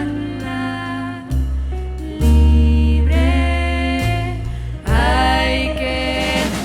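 Jazz-pop band music with deep bass notes under a melodic lead line that slides up into its notes about three and five seconds in.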